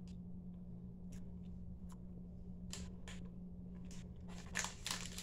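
A person chewing a bite of soft-baked cookie, with faint scattered mouth clicks over a low steady hum, then a short run of louder rustling near the end.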